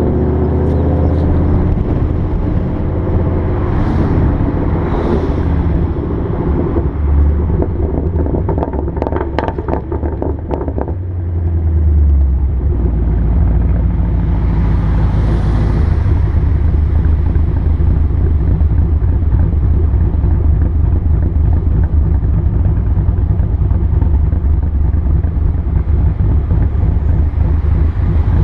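2014 Mustang GT's 5.0 V8 running through Roush axle-back mufflers with the resonators deleted, with a run of rapid pops and crackles from the exhaust on deceleration about a third of the way in. The engine then comes back up in level and settles into a steady low drone.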